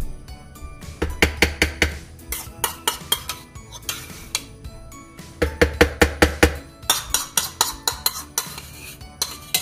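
A metal spoon scraping tomato paste out of a plastic bowl and knocking against the rim of a mini food processor's plastic work bowl, with two quick runs of taps, about a second in and again past the middle. Soft background music plays underneath.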